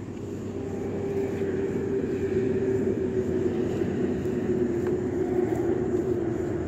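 Alcohol spirit stove burning under a pot, making a steady low rushing drone that grows louder over the first couple of seconds and then holds.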